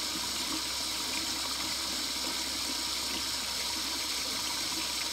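Steady rushing hiss like running water, over a low hum, from a vacuum-boiling setup: a flask of water at reduced pressure, about 20 mmHg, boiling at room temperature.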